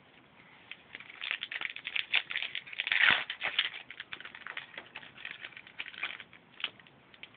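Foil wrapper of a 2010-11 SP Game Used hockey card pack being torn open and crinkled as the cards are pulled out: a run of crackling and crinkling that starts about a second in and is loudest around three seconds in.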